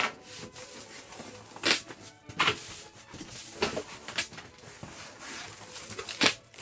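Cardboard box flaps being pulled open and folded back by hand: a series of separate scraping, rustling bursts of cardboard rubbing on cardboard.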